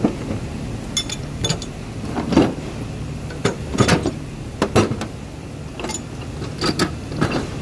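Hand tools (hammers and a mallet) clinking and knocking against the steel of a toolbox drawer as they are shifted about: about a dozen separate sharp knocks, irregularly spaced, over a steady low hum.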